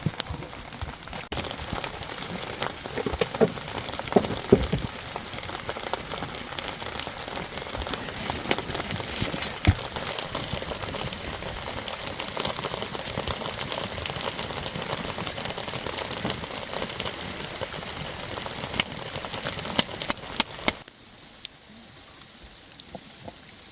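Heavy rain falling, a dense steady patter with many scattered sharp ticks of drops striking hard surfaces. Near the end it drops suddenly to a much quieter patter.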